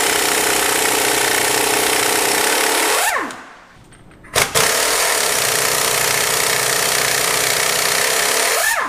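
Snap-on PT850 half-inch air impact wrench hammering on cross-threaded nuts, in two long runs of about four seconds each. Each run winds down with a falling whine.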